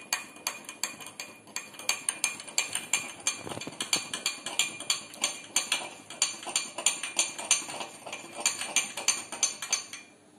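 Metal spoon stirring salt into water in a drinking glass, clinking against the glass wall in a rapid, even run of about five clinks a second.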